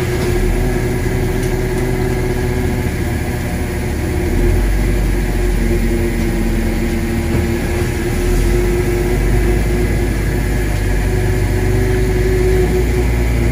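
Fishing boat's engine and deck machinery running steadily: a deep rumble that swells and eases a few times, under a steady mechanical hum.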